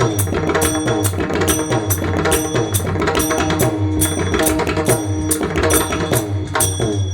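Instrumental kirtan accompaniment: hand drum and small hand cymbals keep an even beat of about three strikes a second under held melodic notes.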